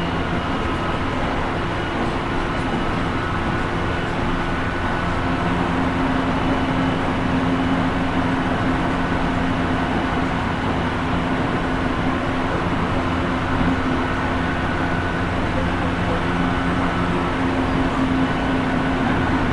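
Tsukuba Express TX1000 series electric train running at speed, heard from inside the car: wheel-on-rail rumble with steady, even-pitched tones from the Toshiba two-level IGBT inverter and traction motors.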